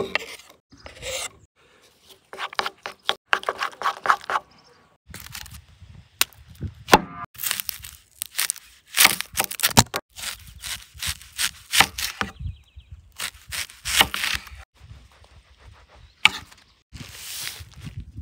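Close-up food-prep sounds: chopped pickles tipped into a wooden bowl, then a knife cutting and peeling an onion on a wooden cutting board with many crisp cracks and scrapes, and wrapping rustling near the end as meat is unwrapped.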